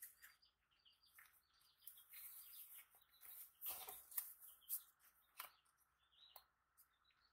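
Faint rustling and a few sharp snaps of disposable exam gloves being pulled on and worked over the hands, the loudest around four seconds in. Faint, short high chirps come and go throughout.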